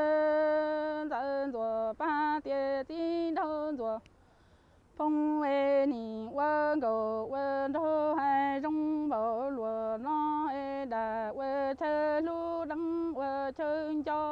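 A woman singing unaccompanied in Hmong folk-song style: she holds one long note briefly, then sings short phrases with wavering, ornamented pitch, breaking off for about a second some four seconds in.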